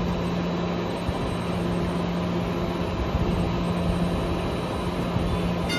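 MBTA Green Line light-rail car standing at the platform, its onboard equipment giving a steady hum with a constant low tone.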